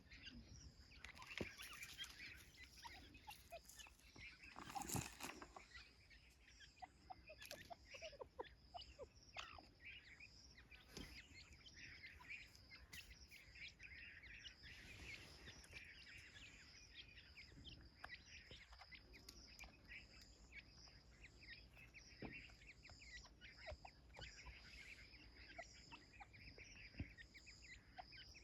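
Faint soft clucking and short chirps of a teetar partridge hen and her chicks while feeding, with scattered small clicks. A steady high-pitched note runs underneath.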